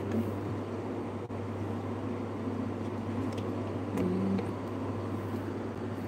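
Steady low hum of background machinery, with a few faint clicks of a hand working the dishwasher door's plastic detergent dispenser.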